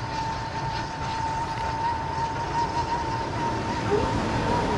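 GWR 1400-class 0-4-2 tank engine 1450 and its train running on the line: a low rumble with one thin, steady, slightly wavering high tone held the whole time.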